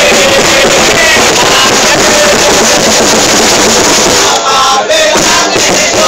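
Large crowd of football supporters singing and chanting together in the stands, very loud and dense. The high end drops out briefly a little past four seconds in.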